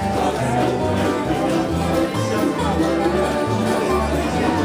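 Acoustic bluegrass string band playing with no singing: upright bass plucking a steady bass line under strummed guitars, mandolin and fiddle.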